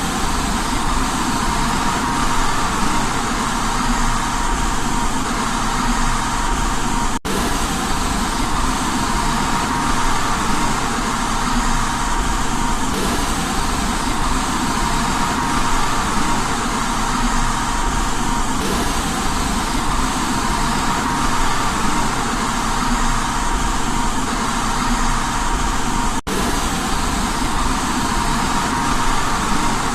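Steady white noise for baby sleep: an even, continuous hiss with a faint steady tone in it, broken by a split-second dropout about seven seconds in and again near the end.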